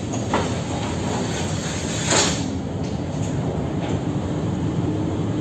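Storm wind and heavy seas heard from a container ship's deck: a steady rumbling noise, with a brief louder rush about two seconds in.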